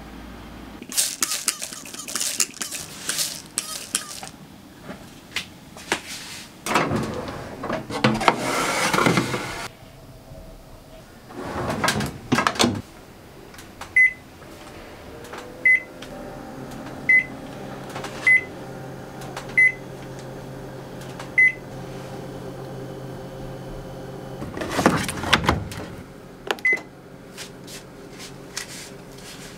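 Hissing spray-bottle squirts and tray handling, then the touch panel of a Panasonic Bistro steam-oven microwave beeping as settings are chosen: six short beeps about a second and a half apart, then a clatter and one more beep near the end.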